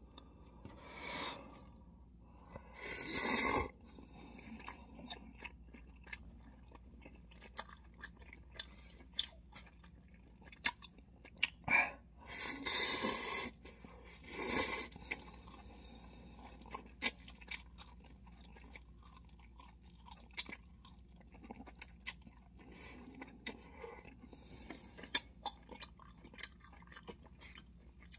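A person eating cup ramen noodles with chopsticks: loud slurps of noodles about three seconds in and again around twelve to fifteen seconds, between soft chewing and scattered small clicks.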